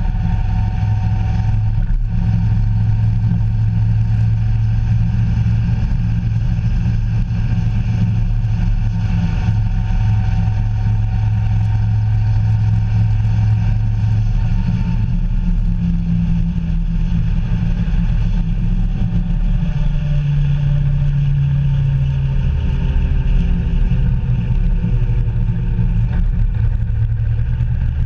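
Engine of a moving road vehicle running steadily over a constant low rumble of wind and road noise; its engine note shifts about halfway through.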